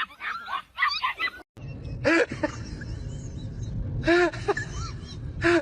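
A dog giving short yelping barks in three quick groups about two seconds apart, each call rising and falling in pitch, over a steady low rumble. Before a cut about one and a half seconds in, there are high-pitched excited squeals.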